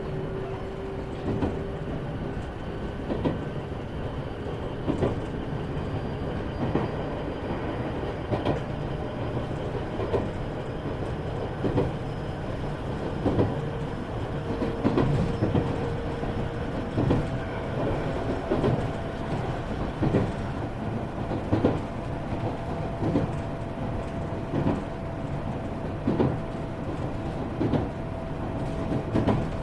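Iyotetsu 3000-series electric train running along the line, heard inside the motor car: wheels clack over rail joints about every second and a half over a steady rumble. A faint motor whine rises slowly in pitch and steps up about halfway through.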